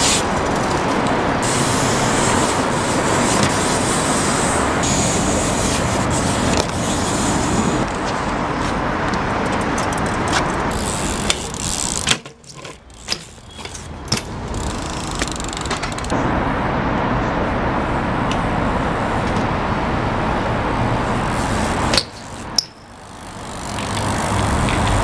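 BMX bike tyres rolling fast over concrete and paving stones, a steady rolling rush. It breaks off twice, about halfway through and again near the end, with sharp clacks and thuds of the bike hitting ledges and landing.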